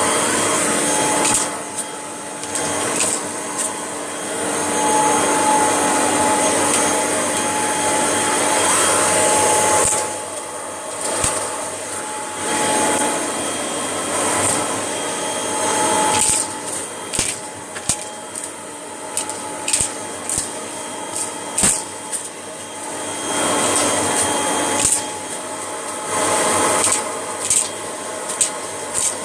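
Vacuum cleaner running with a steady whine and rushing air through a long hose and extension wands. Short sharp clicks and rattles throughout as dog biscuits and debris are sucked up the tube; the pitch and level shift about ten seconds in as the nozzle is moved.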